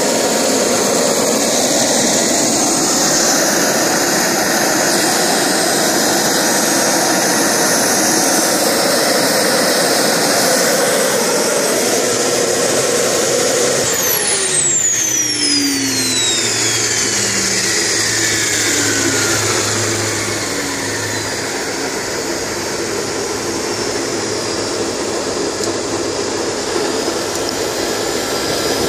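PST Jets gas-turbine power generator running with a loud, steady jet rush and whine. About halfway through, the throttle is pulled back on its radio control and the turbine spools down, its high whine falling steeply in pitch over several seconds while the rush of air goes on, a little quieter.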